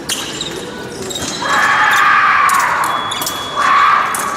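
Fencers' footwork on the piste, quick knocks and stamps, under the echo of a large hall. A loud sustained sound of about two seconds comes in the middle, and a shorter one near the end.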